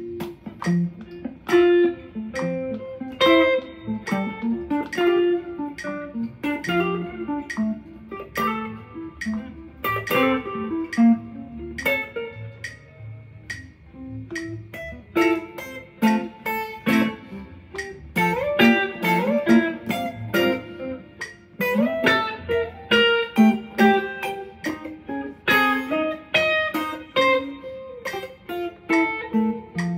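Two clean-toned electric guitars, a Telecaster-style guitar and a Fender, playing a jazz duet together. Quick improvised single-note lines run over chords, with a few sliding or bent notes about two thirds of the way through.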